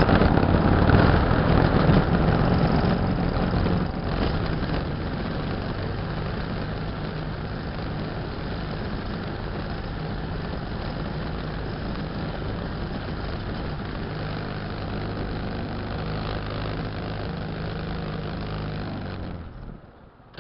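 Yard Pro LT 12.5 riding lawn mower's engine running: louder for the first few seconds, then settling to a steady, slightly quieter run, and cutting off abruptly near the end.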